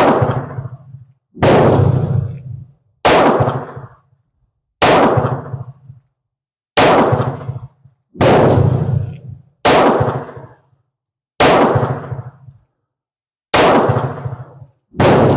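Ruby .32 ACP semi-automatic pistol fired ten times at a steady pace, roughly one shot every one and a half to two seconds. Each loud report rings off into an echo. The pistol fires every round without a stoppage.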